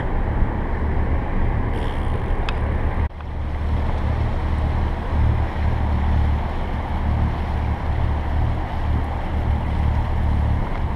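Catamaran's engine running with a steady low drone while motoring along, with some wind on the microphone. There is a brief break in the sound about three seconds in.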